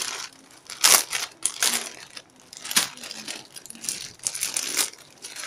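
Thin plastic packaging bag crinkling in irregular bursts as it is pulled open by hand around a squishy toy, loudest about a second in and again near three seconds.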